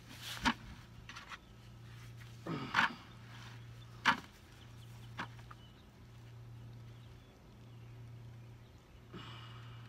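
Handling noise while a small bass is unhooked by hand: a handful of short sharp clicks and knocks in the first five seconds, the loudest about four seconds in, over a faint steady low hum.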